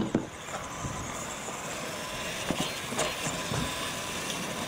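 Radio-controlled monster truck running on a dirt track, its motor and tyres heard as a steady noisy run. There are a few short knocks: two near the start and a few more about two and a half to three and a half seconds in.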